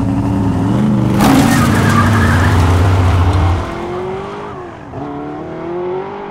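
Dodge Challenger pulling away hard from a dirt shoulder. The engine revs up, and about a second in there is a burst of tyres spinning in the dirt. The revs drop at a gear change about five seconds in, then climb again as the car goes off into the distance.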